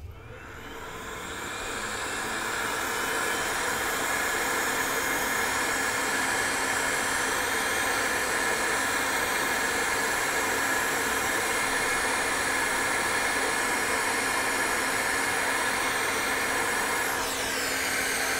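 Hot air rework station blowing a steady hiss of hot air onto a small electrolytic capacitor to melt its solder for removal. The airflow builds up over the first couple of seconds, and near the end its pitch shifts downward.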